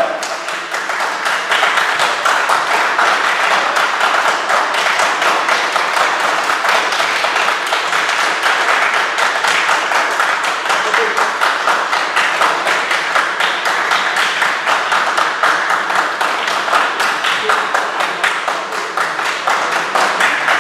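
Crowd applauding, many hands clapping in a dense, steady patter that keeps up throughout.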